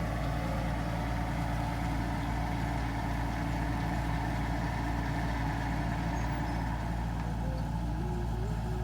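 Engine of a farm machine running steadily at a constant speed, a continuous even hum.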